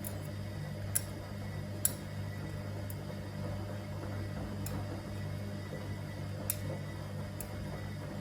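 Gorenje SensoCare washing machine running, with a steady low motor hum and about six sharp, irregular clicks from inside the machine.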